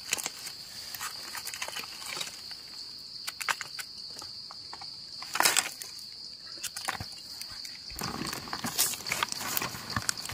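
Steady high-pitched insect drone, with crackling and rustling of dry leaf litter as mushrooms are picked by hand and trimmed with a knife; a louder rustle comes about halfway through.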